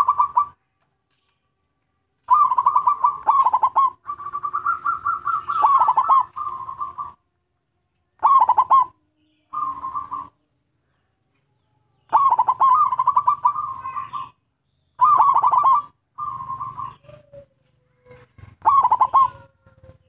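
Local-strain zebra dove (perkutut) cooing: a series of rapid, trilled coo phrases, about nine of them with short pauses between, one longer phrase a few seconds in.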